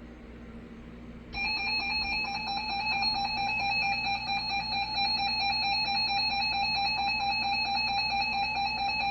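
Emergency Alert System attention signal: a steady two-tone alert tone that starts about a second in and holds without a break, the signal that a broadcast emergency warning is about to be read.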